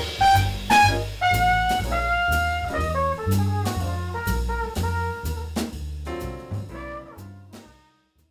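Small-group jazz: a brass horn melody over bass and drums, fading out near the end.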